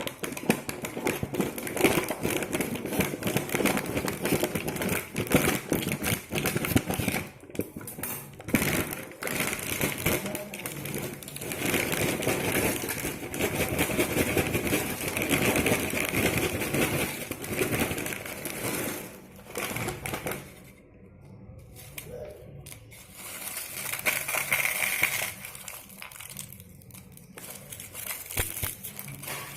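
Crinkling and crackling of a plastic potato chip packet being handled and squeezed, a dense run of rapid crackles that goes quieter for a few seconds about two-thirds of the way through.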